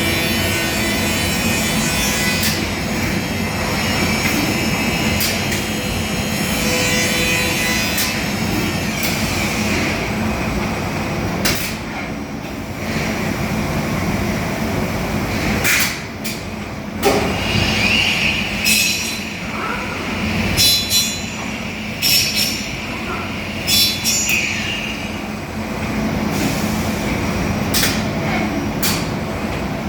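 CNC machining centre running while it machines furniture panels: steady machine noise with a constant low hum. From about the middle on it is broken by a series of sharp clicks and short high-pitched bursts.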